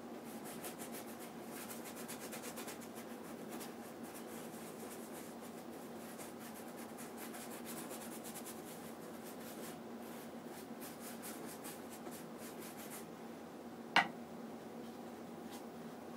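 Flat bristle brush stroked quickly and lightly over an oil-painted canvas, brushing poppy oil onto the dry paint: a long run of fine, scratchy strokes that stops near the end, followed by one short sharp click.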